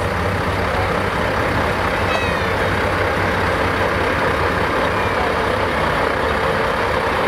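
Steady low hum of diesel truck engines idling, under constant background noise.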